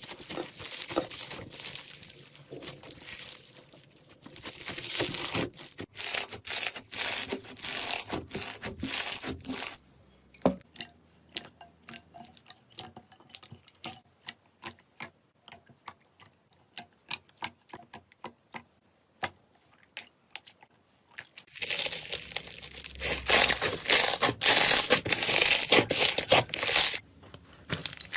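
Slime being squeezed and pressed by hand: sticky crackling and crinkling, then a long run of separate sharp pops several a second, then a louder burst of dense crackling near the end that stops suddenly.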